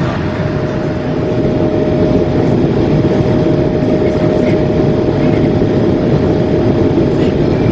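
Airbus A220-300 airliner cabin noise: a steady rush of airflow and its Pratt & Whitney PW1500G turbofans, with one steady hum tone running through it. It grows a little louder about two seconds in.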